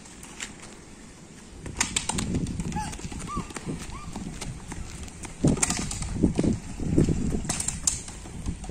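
A rubber play ball being kicked and bouncing on concrete paving, with a small child's sandalled footsteps slapping as he runs after it. There are a few sharp knocks, about 2 s in, around 5.5 s in and again near the end.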